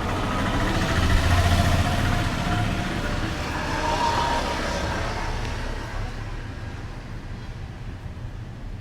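Road traffic: a motor vehicle passing close by over a steady low rumble, loudest a second or two in, then fading away.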